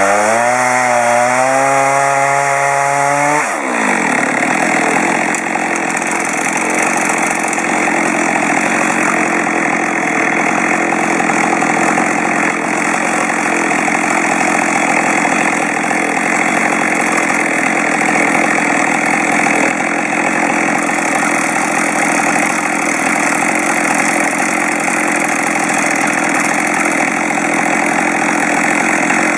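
Two-stroke chainsaw revving with a wavering pitch. About three seconds in, the engine note drops as the chain bites into pine, and it then cuts steadily, ripping the log into boards.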